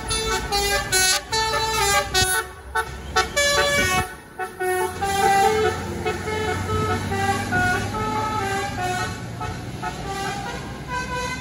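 A tour bus's multi-tone 'telolet' musical horn playing a run of changing notes, over the low steady sound of the bus's engine, which grows stronger about halfway through as the bus comes by.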